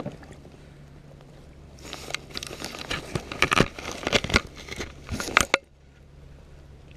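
Close, irregular crackling and rustling clicks for about four seconds, cutting off suddenly: handling noise right at the microphone as a freshly caught bass is handled for release from a kayak.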